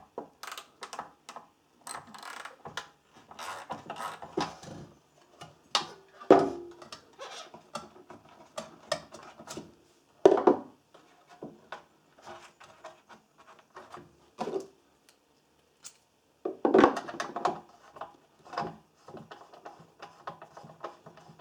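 Irregular clinks, taps and rubbing of metal parts and tools being handled while a fuel filter fitting is unscrewed from a small engine's metal fuel tank.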